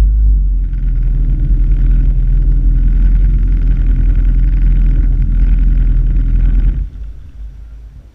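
Jet ski engine running steadily and loud, then falling off sharply near the end.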